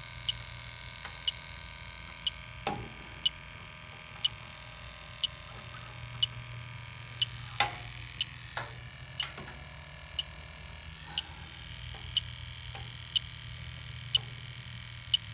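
Fieldpiece SRL8 heated-diode refrigerant leak detector ticking evenly, about once a second, as its probe is swept around the condenser's service valves on medium sensitivity: the steady slow rate means no refrigerant is being picked up. A few louder knocks from handling the probe are heard over a steady low hum.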